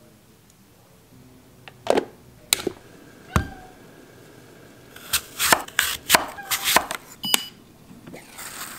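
Kitchenware being handled on a hard surface: three separate sharp knocks and clinks, one with a short ring, then a quicker run of clatter about five seconds in.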